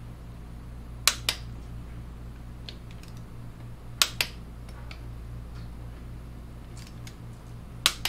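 Click-type torque wrench breaking over three times, about three seconds apart, each a sharp double click as a rear wheel bolt reaches its set torque of 44 ft-lb. A few faint ticks fall between them, over a steady low hum.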